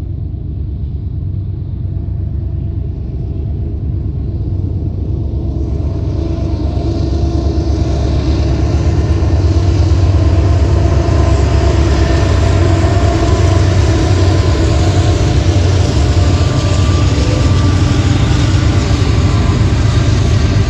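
Union Pacific diesel locomotives hauling a freight train approach and pass. A deep engine rumble grows louder over the first ten seconds and then stays loud, and a rushing noise joins it from about six seconds in as the train draws near.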